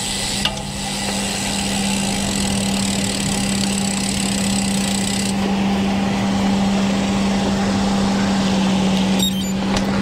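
Wind and tyre noise from a road bicycle rolling along, with a steady low hum underneath. The high hiss eases about halfway through, and a few faint clicks come near the end.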